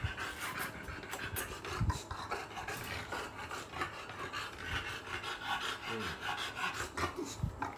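Close-up rasping and rubbing of hands scratching and petting a bulldog's fur and skin, irregular throughout with a few soft low thumps.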